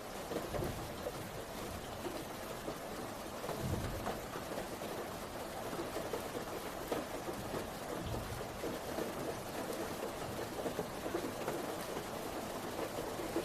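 Heavy rain falling steadily, a continuous hiss, with a few brief low rumbles rising out of it.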